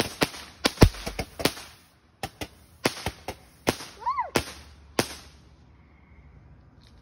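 Phantom Yellow Jackets hybrid fountain crackling: sharp, irregular pops that thin out and stop about five seconds in. A short whistle that rises and falls comes just after four seconds.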